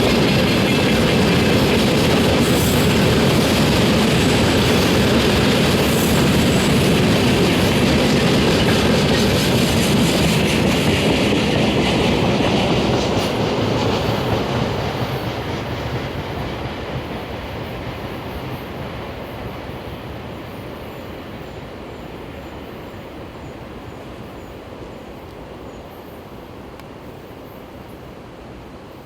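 Freight train of tank wagons rolling past, wheels clattering over the rail joints. About halfway through the noise begins to fade steadily as the train moves away.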